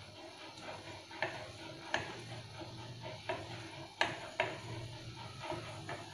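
Chopsticks stirring and lifting instant noodles in a metal pot of simmering liquid, knocking sharply against the pot about five times.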